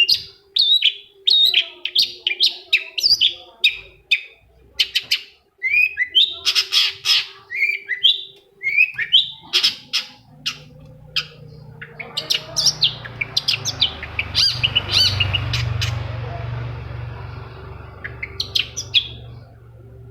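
Long-tailed shrike singing: a fast run of sharp chirps and scratchy notes, several a second. From about halfway a low rumble swells, peaks and fades away near the end.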